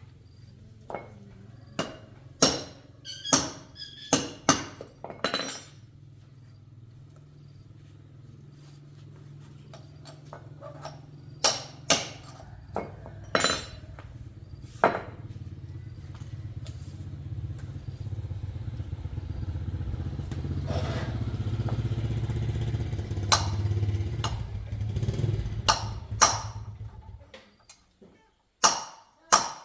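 Small motorcycle engine running steadily at low speed, picking up in speed and loudness for a few seconds, then shut off abruptly near the end. Sharp knocks and clicks sound over it.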